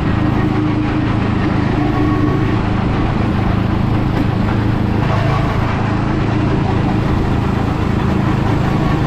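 Car engine and road noise, a steady drone while driving.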